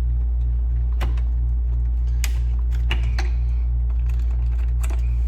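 A steady low electrical hum runs under a few sharp clicks and knocks. The clicks are the Macintosh 512K's analog board and its cable being handled and worked loose.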